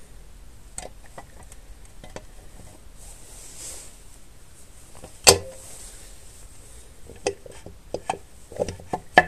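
Metal parts clicking and knocking as a motorcycle clutch cover is fitted onto the engine case. There is one sharp knock about five seconds in, then a run of lighter knocks near the end.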